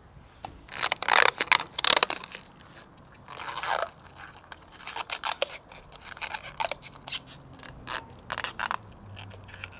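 Hand snips cutting painted sheet-metal roof trim: a series of short, sharp snips and scrapes of metal at irregular intervals.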